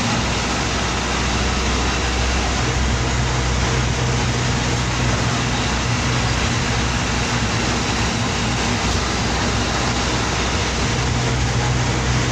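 Bus's diesel engine running steadily under way, heard from inside the cab, with road and wind noise over its drone. The engine note firms up a few seconds in and again near the end.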